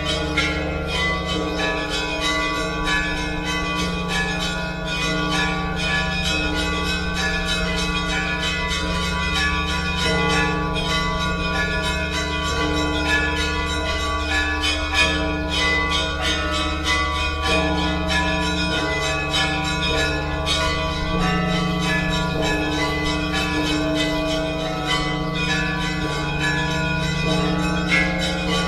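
Church bells ringing in a continuous peal, many bells struck together in a quick, steady rhythm.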